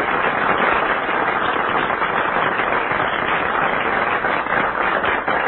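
Studio audience applauding steadily, a dense, sustained ovation of many hands clapping.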